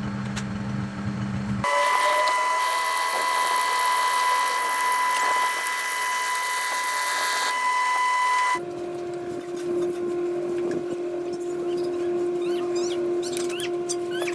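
Workshop power tools running steadily in three abruptly cut stretches: a low hum, then from about a second and a half in a loud high-pitched whine with a hiss above it, and from about eight and a half seconds in a lower steady hum.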